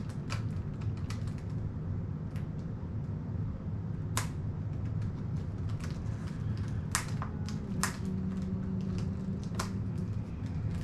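Scattered sharp clicks and taps at irregular intervals, the clearest about four seconds in and just before eight seconds, from small objects being handled in someone's hands, over a steady low hum.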